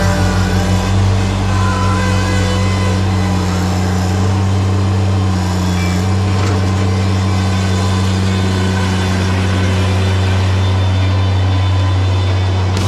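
Bobcat MT100 mini skid steer's engine running at a steady speed with an even low hum.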